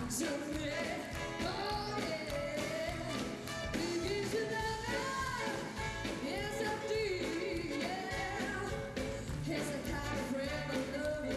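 Live blues band performance: a female singer's voice sliding and bending in pitch over the full band, with steady drum hits.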